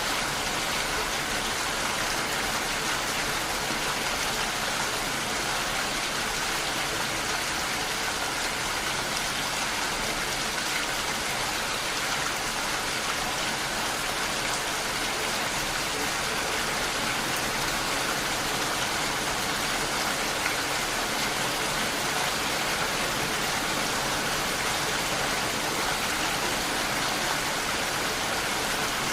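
Steady rain falling, an even hiss of drops that holds constant throughout.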